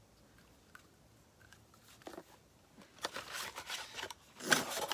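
Small cardboard box being handled, with a few faint ticks and then rustling and scraping as its contents are slid out. The loudest is a short sharp scrape about four and a half seconds in.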